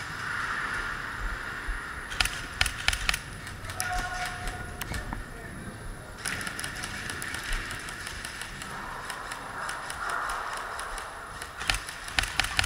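Airsoft gunfire: a quick run of sharp cracking shots about two seconds in, and another run near the end.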